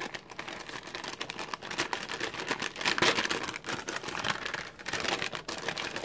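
A translucent polka-dot paper envelope crinkling and rustling as it is handled: a dense run of small crackles and ticks.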